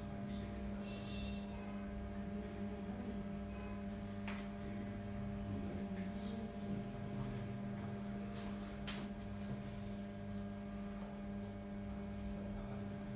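Steady electrical hum with a constant high whine above it, broken only by a few faint ticks.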